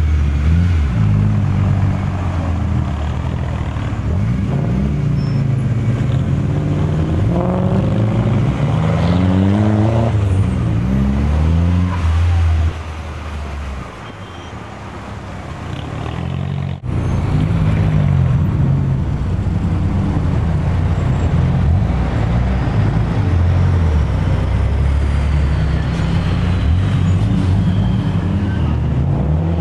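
Car engine running under way, heard from a moving car. Its pitch climbs again and again through the gears as it accelerates about a third of the way in. It drops to a lower level for a few seconds, then cuts back in abruptly to a steady engine drone.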